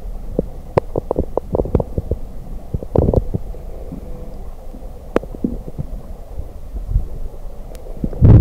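Muffled underwater sound picked up through a waterproof camera housing: a low rumble with irregular clicks and knocks, a quick run of them in the first two seconds, a cluster around three seconds, and the loudest thumps near the end.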